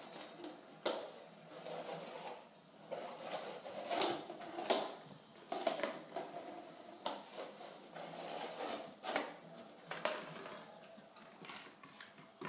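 Malinois puppy pawing and nosing a clear plastic bowl across a tile floor: irregular knocks, clatters and scrapes of plastic on tile, mixed with claws clicking.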